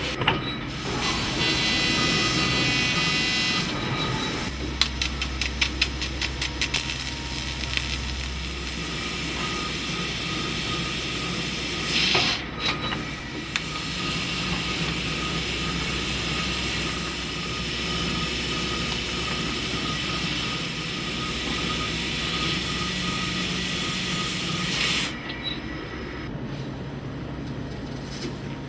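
Mazak OPTIPLEX CO2 laser cutting machine at work: a loud, steady hiss of gas from the cutting head, with a quick series of sharp pops, about four a second, around five to seven seconds in. The hiss cuts off suddenly near the end.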